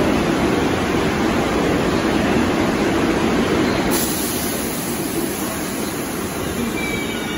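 Steady rumble of New York City subway trains in an underground station, as a train approaches through the tunnel. The level drops a little about four seconds in, and a faint high squeal comes in near the end.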